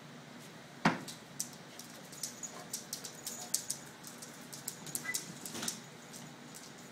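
A dog's claws clicking and skittering on a hard, smooth floor as it plays, in quick irregular runs, with one loud knock about a second in.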